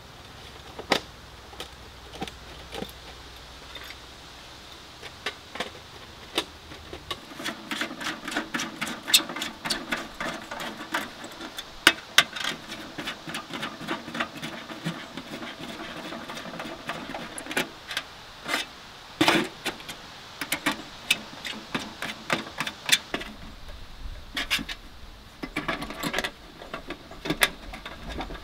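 Thin metal parts of a Pomoly portable tent wood stove clinking and rattling as it is assembled by hand: quick, irregular clicks and clanks, sparse at first and much busier after the first several seconds.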